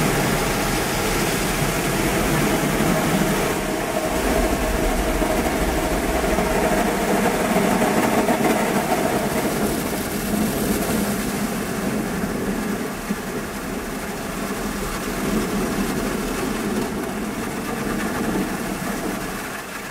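Automatic gantry car wash machine working over the car, heard from inside the cabin: a steady rushing noise with a motor hum. It eases off about halfway through and drops near the end.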